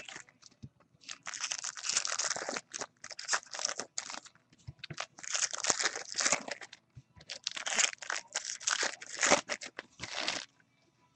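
Foil baseball card pack wrappers being torn open and crinkled, a rustling crackle that comes in four or so bouts with short pauses between.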